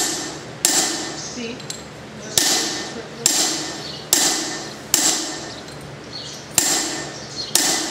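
A hand hammer strikes the head of a handled fuller set on a horseshoe about eight times, roughly once a second but unevenly. Each blow gives a sharp metallic clang that rings out and fades. This is the fuller groove being cut along the shoe.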